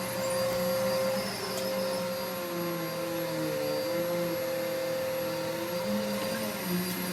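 Vacuum cleaner running steadily; its lower motor hum wavers up and down in pitch a few times while a higher whine holds steady.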